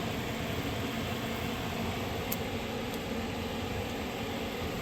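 Steady background hum and hiss, with one faint click a little past two seconds in.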